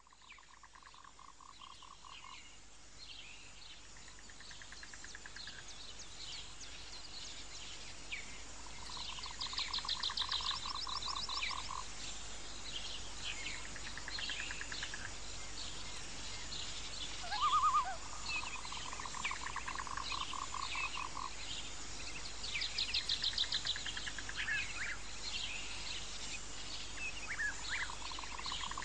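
Outdoor animal chorus: frogs calling in rapid pulsed trains about two seconds long, recurring every several seconds, over a steady high insect hiss and scattered bird chirps. It fades in at the start, and one short, louder call stands out about two-thirds of the way through.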